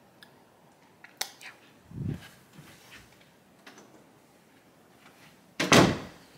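A few scattered clicks and knocks in a quiet small room: a sharp click about a second in, a soft dull thump about two seconds in, and a louder, short bump near the end.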